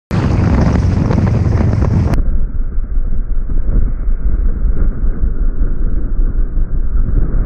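Royal Enfield Thunderbird 500 motorcycle riding at highway speed, with heavy wind rushing and buffeting over the action-camera microphone and the single-cylinder engine running underneath. About two seconds in, the sound suddenly turns muffled.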